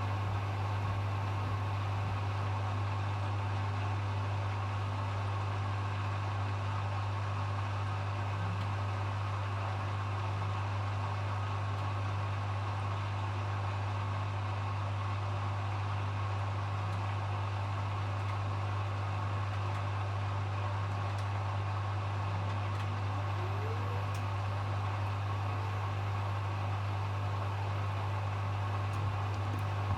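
Hoover HW411AMC washing machine running steadily during its final spin programme, with a strong constant low hum and a faint short rising whine about two-thirds of the way in.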